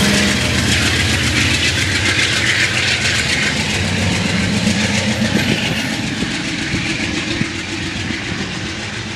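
Amtrak GE Genesis diesel locomotive and bilevel passenger cars accelerating away under power, with rapid clatter of wheels over the rails. The sound grows steadily fainter as the train recedes.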